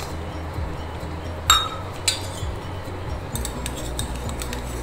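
Small stainless-steel davara cups knocking and clinking against a steel plate as steamed idlis are tipped out of them: a sharp ringing clink about a second and a half in, a second soon after, then a few lighter taps, over a low steady hum.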